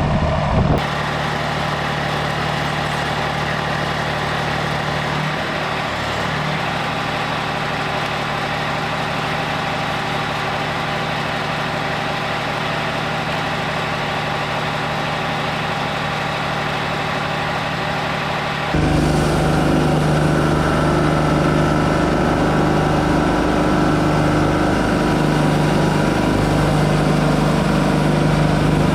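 Wood-Mizer LT40 Wide portable bandsaw mill running steadily, its engine note holding one pitch, then getting clearly louder about two-thirds of the way through.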